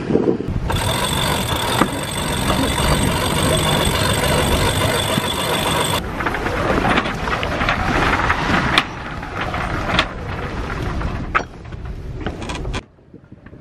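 Mechanical running noise aboard a sailing catamaran while its headsail is rolled in, with a steady high whine. About six seconds in it turns rougher, with rising and falling tones and several sharp clicks, then drops off suddenly near the end.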